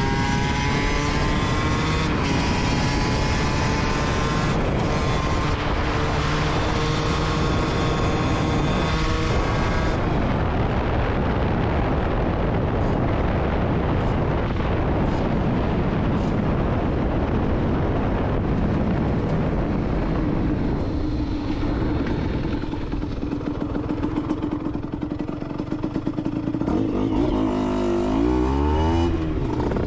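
Aprilia SX 125's single-cylinder two-stroke engine through an Arrow exhaust, under way: it revs up through the gears for the first ten seconds, the pitch climbing and dropping back at each shift. It then holds a steady speed, with quick rises and falls in revs near the end.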